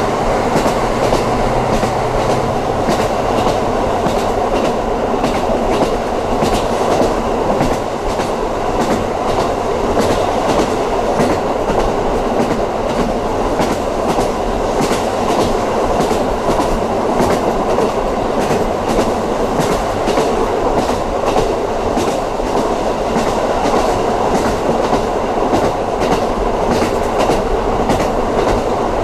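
Running noise of a JR KiHa 54 diesel railcar at speed, heard from inside the car: a steady rumble of wheels on rail with frequent clicks and knocks from the track. A low steady hum is heard during the first couple of seconds and then fades.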